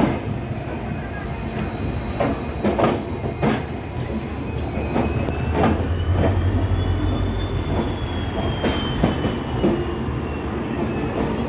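Indian Railways WDP-4-series diesel locomotive running slowly past: a steady low engine rumble that swells about halfway through, with scattered sharp clicks of wheels over rail joints and a high whine that rises and then falls in pitch.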